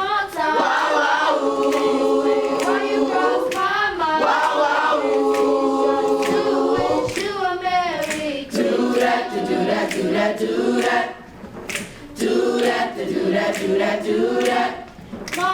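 A middle school chorus singing wordless held chords that shift in pitch, with short breaks between phrases. Sharp clicks run through it, keeping a beat.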